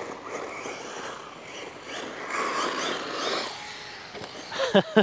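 HBX 901A brushless RC buggy on 2S driving, its motor whine rising and falling in pitch. Near the end come three short, sharp, loud sounds.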